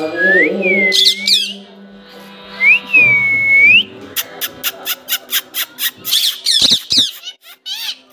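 Rose-ringed parakeets calling: a few clear swooping whistles that dip and rise again, then, about four seconds in, a fast run of short, sharp squawks, about three or four a second.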